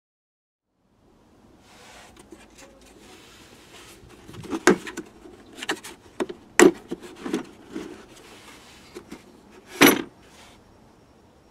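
Hard plastic tool case being handled and opened, with several sharp clicks from its catches and lid, the loudest near the end, over low rubbing and handling noise.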